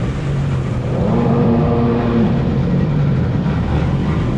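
Jet ski engine running under steady throttle, heard from on board, with the hiss of spray off the hull. A higher engine tone rises over it from about one to two seconds in.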